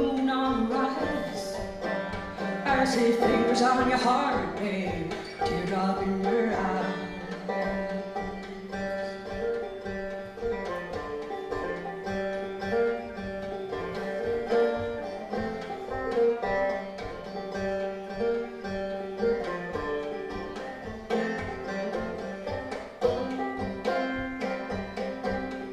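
Solo five-string banjo picked in a steady rhythm. A woman's voice sings with gliding pitch over the first few seconds, then the banjo carries on alone.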